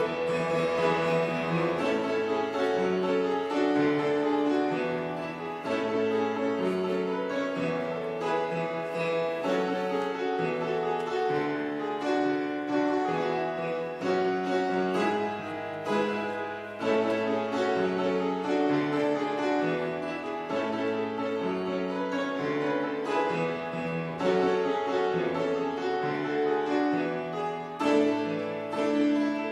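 Instrumental keyboard music, piano-like in tone: a slow piece of chords held about a second each, with a melody over them.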